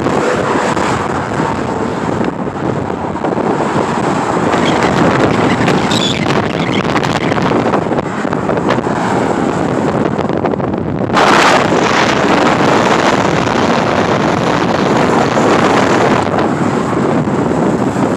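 Highway traffic, semi trucks and cars rushing past, with heavy wind buffeting the microphone. A sudden louder rush comes about eleven seconds in. No horn sounds.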